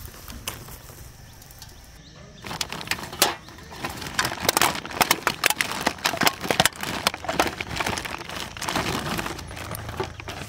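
Plastic feed bag crinkling and rustling as it is handled, a dense run of sharp crackles that starts about two and a half seconds in, after a faint low outdoor background.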